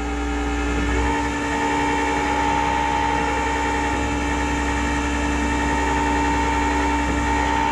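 Tow truck's engine running with its hydraulics engaged, giving a steady mechanical hum with held whining tones; a higher whine comes in about a second in and holds.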